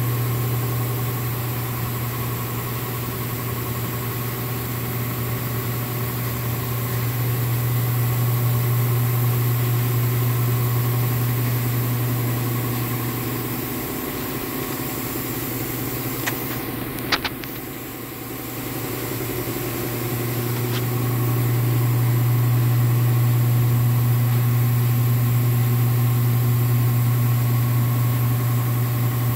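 Steady low mechanical hum of a spray booth's ventilation fan running. It weakens for a few seconds a little past the middle, with a couple of short clicks, and then comes back.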